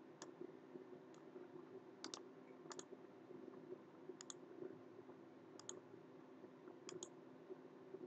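Faint computer mouse clicks, about seven of them at uneven intervals, several coming in quick pairs, over a low steady hum.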